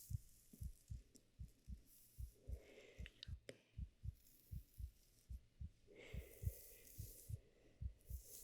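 A soft, steady heartbeat, each beat a low double thump, about one beat a second. Twice, about two seconds in and again near six seconds, a soft breathy shushing sound rises over it.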